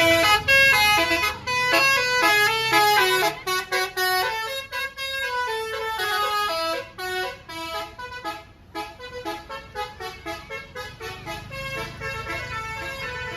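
Bus's Basuri 'telolet' multi-tone horn playing a fast stepping melody over and over, loudest in the first few seconds and quieter after that.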